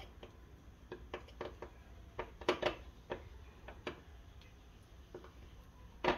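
A spoon clinking and scraping against a small glass bowl in irregular light ticks while vanilla pudding powder is stirred into a smooth paste.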